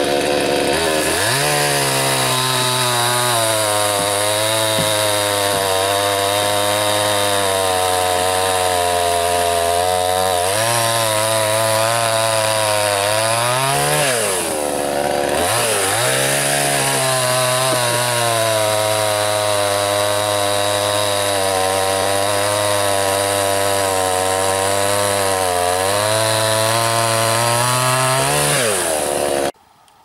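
Chainsaw cutting through a fallen tree trunk. The engine revs up about a second in, then its pitch sags and recovers under load several times, dropping furthest about halfway through before climbing back. It cuts off abruptly near the end.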